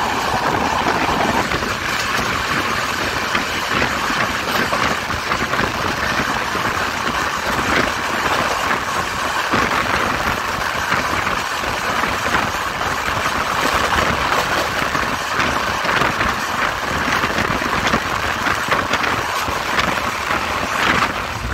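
Steady rush of wind and wheel-on-rail noise at the open door of a Rajdhani Express passenger coach running at speed.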